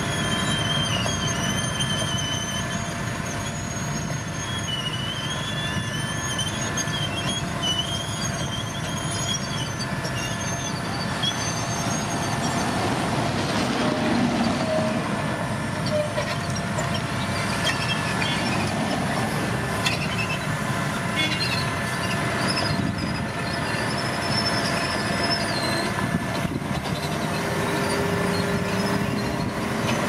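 Heavy construction machinery running steadily, with a wavering, high-pitched metallic squeal that comes and goes, clearest in the first third and again near the end.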